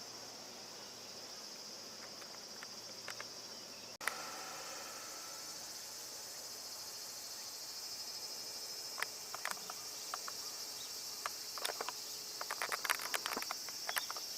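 Cicadas droning steadily in a high-pitched band, with scattered short clicks and taps in the second half.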